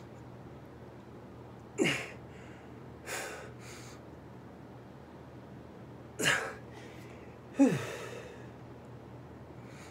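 A man's sharp, forceful breaths and short grunts as he strains through push-ups, four in all, some dropping quickly in pitch, the last one the loudest.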